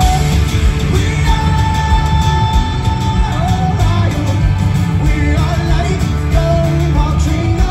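Live rock band playing guitars, bass and drums with singing, loud and heard from among the crowd at an outdoor festival stage.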